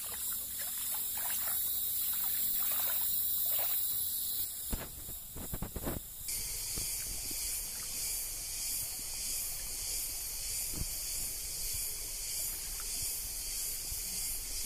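Steady high-pitched insect buzzing, pulsing evenly in the second half, with rustling of undergrowth and a few sharp knocks of handling about five seconds in.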